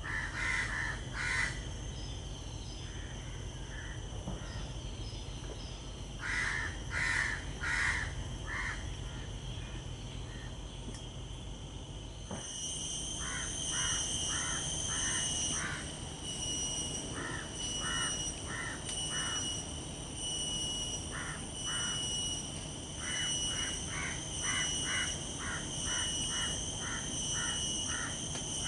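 Wild forest ambience: a bird gives bouts of short, harsh, repeated calls, about two a second in the longer second bout. A steady, high insect drone sets in about halfway through.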